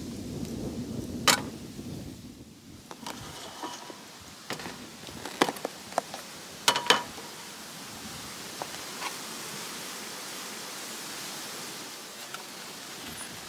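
Cooking things being picked up and set down on a slatted wooden camp table, with a plastic food container's lid lifted off: a few sharp clicks and knocks, the loudest a clink about a second in and a close pair about seven seconds in. A steady soft hiss runs underneath.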